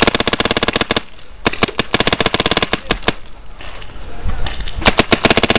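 Paintball markers firing in rapid strings of shots: one string at the start lasting about a second, another from about one and a half to three seconds in, a few single shots, and a fast string again near the end.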